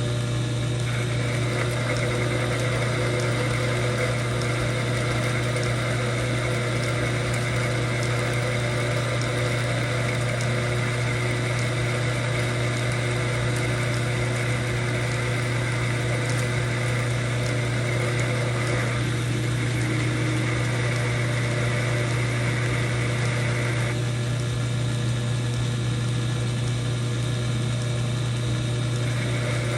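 Old metal lathe running steadily, its motor giving a constant low hum, with a higher whine above it that fades about 24 seconds in.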